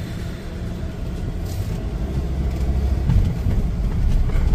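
Camper van under way, heard from inside the cab: a steady low engine and road rumble that grows gradually louder as the van picks up speed.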